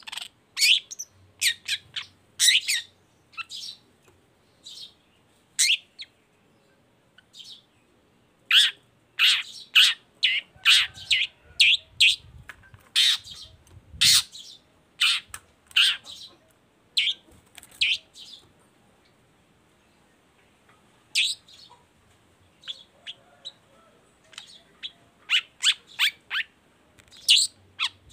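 Caged long-tailed shrike singing: quick clusters of short, sharp, high chattering notes, broken by a brief pause about two-thirds of the way through.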